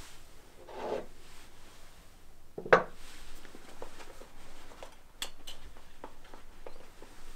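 An ashtray set down on a wooden coffee table: a soft rub about a second in, then one sharp knock, followed by a scatter of small clicks and handling noises.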